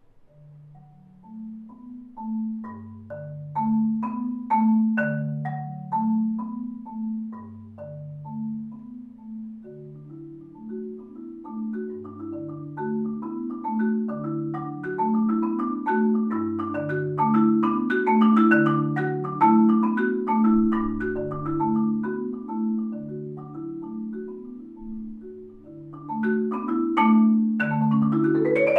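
Solo concert marimba played with mallets: a repeating low bass figure under short higher notes, which from about ten seconds in fills out into a steady running pattern in the middle range that builds louder. A quick rising run of notes comes at the very end.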